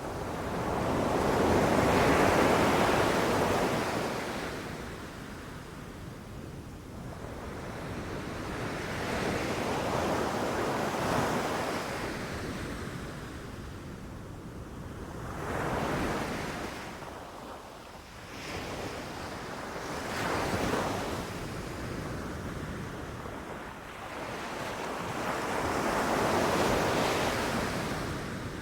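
Ocean waves breaking and washing up a beach, the surf swelling and fading about five times, each wash lasting a few seconds.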